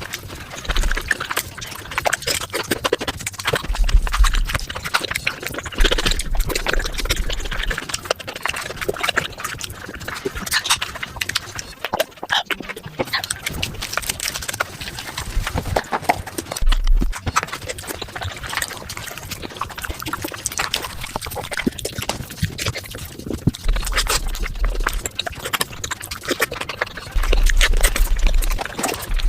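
Mukbang eating sounds played at five times speed: a rapid, dense stream of chewing, smacking and slurping.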